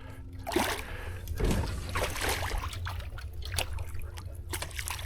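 Irregular splashing and dripping water as a hooked bass is handled at the water's surface beside a kayak, with a steady low wind rumble on the microphone.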